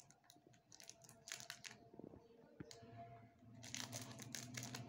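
Clear cellophane shrink-wrap crinkling and tearing as it is pulled off a small perfume box, in scattered faint crackles. A low steady hum comes in about three seconds in.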